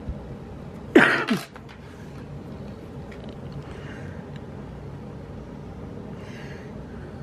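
A person's sudden loud vocal burst, like a cough or sneeze, about a second in: two quick parts falling in pitch, over within half a second.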